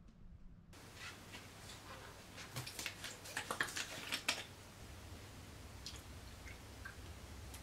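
Plastic drink bottle being handled and its cap twisted open: a quick run of small clicks and crackles about three to four seconds in, over a faint steady room hum.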